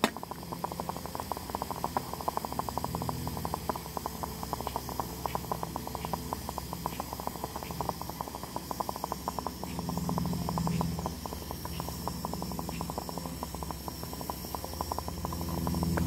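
A pot of coffee water heating over a campfire: a dense, fast crackle and bubbling, with deeper swells about ten seconds in and again near the end.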